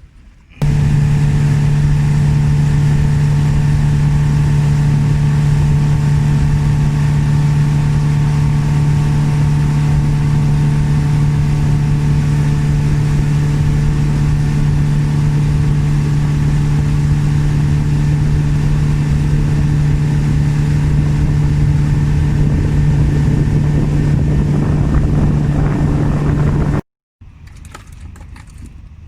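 A boat's engine running loud and steady at constant speed, an even hum with no change in pitch. It starts abruptly about half a second in and cuts off suddenly near the end.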